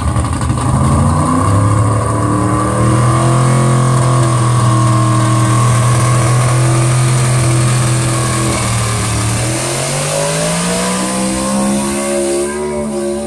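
Pickup truck engine at high revs under heavy load, pulling a weight-transfer sled down a pulling track. The revs climb over the first couple of seconds, hold steady, sag about nine seconds in, then climb again near the end.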